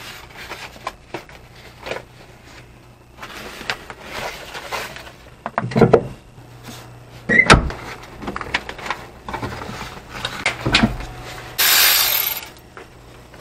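Hands tucking a cable behind plastic trim and the door seal in a small truck cab: rustling, clicks and a few sharp knocks. Near the end there is a loud rushing noise lasting about a second.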